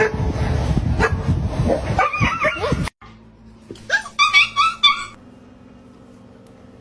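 Animal sounds: a loud, noisy rumbling stretch that cuts off abruptly about three seconds in, then a quick run of five or six short, high calls.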